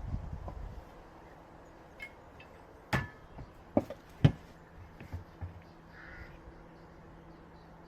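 A handful of separate sharp knocks and clicks, the loudest about four seconds in, over a faint steady hum.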